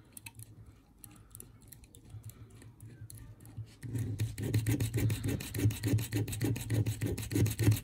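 A 0.9 mm drill bit boring through the plastic body shell of a model locomotive: faint scratching at first, then about four seconds in a rhythmic scraping of some four to five strokes a second as the bit cuts through.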